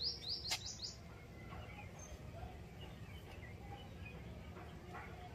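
A bird calling a quick series of short rising chirps, about four a second, that stops about a second in. After that, fainter scattered bird chirps sound over a low steady background rumble.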